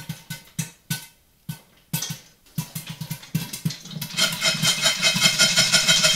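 Popcorn kernels popping in a covered stainless-steel pot with a glass lid, in scattered single sharp pops. About four seconds in the pot is shaken on the hob to keep the kernels from scorching on the bottom, and a fast, even, metallic rattle of lid and kernels takes over as the loudest sound.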